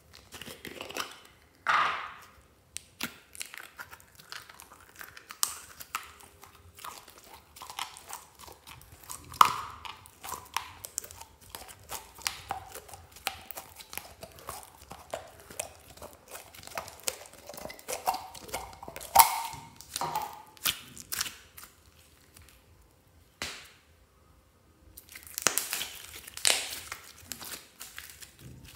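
Green slime squeezed out of a plastic container and worked by hand, making dense wet crackling, squishing and popping. There are sharp loud pops about two seconds in and again a little past the middle, and a short quieter spell before the crackling picks up again near the end.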